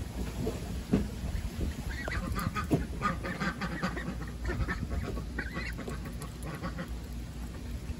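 Ducklings quacking in short calls, clustered in the middle, over a steady low rumble of wind on the microphone, with a few soft knocks.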